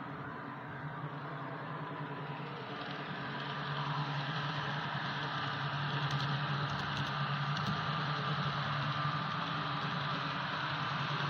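Hornby OO-gauge model train running along the layout track: a steady motor hum and wheel rumble that grows louder a few seconds in, with a few faint ticks in the middle.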